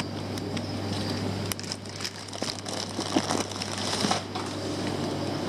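Plastic fish-shipping bags crinkling and rustling as they are handled and pulled out of a packed box, with many small sharp crackles.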